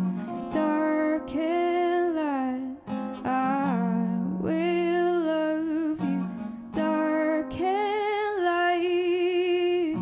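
A woman singing long held notes that glide between pitches, accompanied by a classical guitar.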